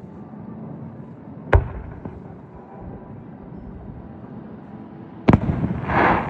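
Fireworks going off: two sharp bangs, one about a second and a half in and one near the end. The second is followed by a short crackling burst, over steady low background noise.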